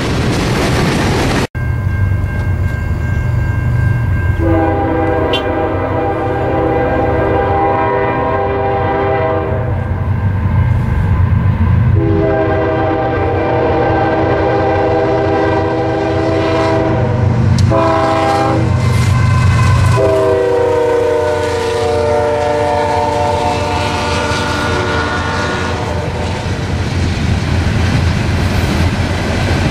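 Diesel freight locomotive's multi-note air horn sounding the grade-crossing signal, two long blasts, a short one and a final long one, over the steady rumble of the train. At the start, freight cars roll past, and near the end coal hopper cars rattle by on the rails.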